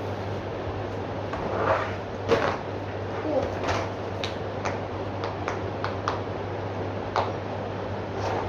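Bubbles of a giant silicone Pikachu pop-it fidget toy being pressed, giving a run of sharp pops at an irregular pace, about one to three a second, over a steady low hum.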